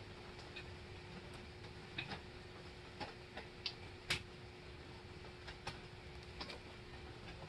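Faint, irregular light clicks and ticks of a transmission TV cable with its tension spring and fitting being handled at the throttle linkage, the sharpest about four seconds in, over a faint steady hum.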